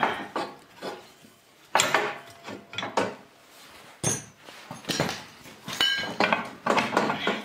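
Steel parts clinking and scraping as a bolted bracket and the belt clutch pulley are handled and fitted back in place. It is a series of irregular metallic clanks, with a brief ringing clink about six seconds in.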